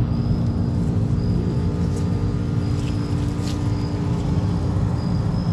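Commercial air-conditioner condensing units running: a steady low hum of condenser fans and scroll compressors with several steady tones in it. Faint short high chirps come and go above it.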